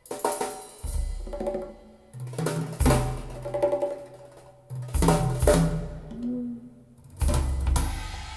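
Drum-heavy music played through a pair of modified Radiotehnika S-90 loudspeakers: kick, snare and cymbal hits come in stop-start phrases, each dying away into a short gap.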